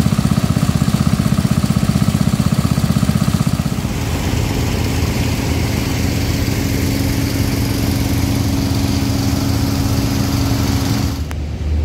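Small petrol engine-driven water pump running, pumping water out of the work area for dewatering. Its rapid, even firing pulses are clear for the first few seconds, after which the sound turns to a steadier engine drone.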